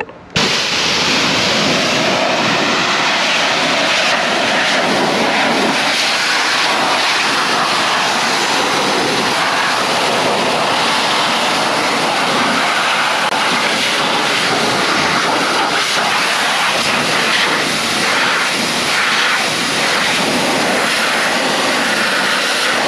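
Pressure washer running, its wand blasting a jet of water onto a tractor engine's castings and sheet metal: a steady, loud rush of spray that starts suddenly just after the beginning.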